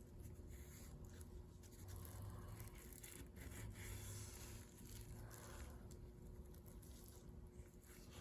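Faint, soft swishing of a cloth-wrapped applicator block wiping a clear coating across car paint, in repeated strokes about a second apart.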